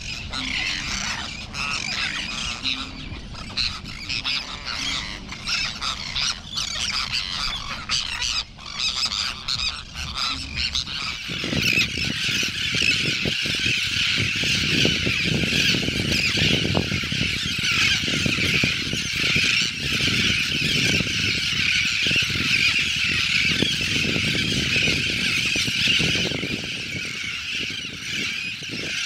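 A crested tern colony calling: a dense, unbroken chorus of many overlapping calls. About eleven seconds in, a low rumbling noise joins under the calls and continues.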